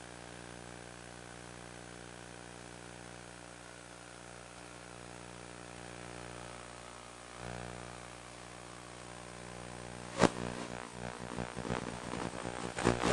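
Multirotor camera drone's propellers running in a steady buzzing hum. About ten seconds in there is a sharp knock, followed by irregular knocking and crackling.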